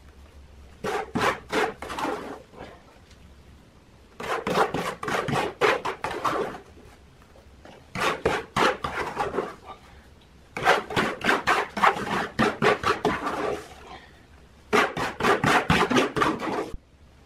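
A trowel scraping and scooping wet cement mortar out of a mixing basin and spreading it into a mould. It comes in five bouts of quick scrapes with short pauses between.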